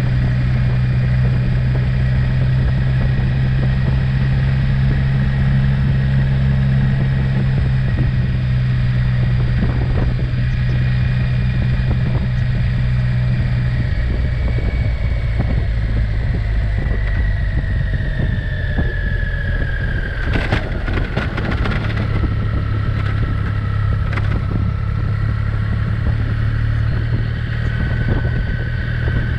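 Motorcycle engine running at a steady cruise, heard from the saddle with road and wind noise. About halfway through the engine note falls as the bike slows. A few sharp clatters come about two-thirds of the way in.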